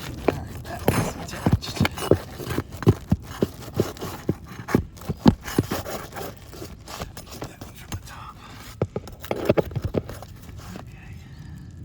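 Irregular knocks, clicks and scrapes of hands and tools working on fiberglass asphalt roof shingles as they are pried loose. The knocks come in clusters and thin out near the end.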